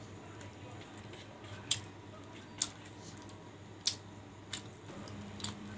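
A person eating rice and curry by hand: quiet mouth and handling sounds with a few sharp clicks, roughly one a second. A low steady hum starts near the end.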